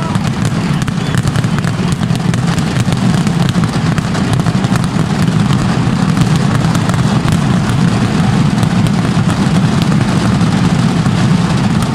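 Mascletà firecrackers in the closing terremoto barrage: a dense, unbroken run of bangs so close together that they merge into a steady, loud low rumble with crackling on top.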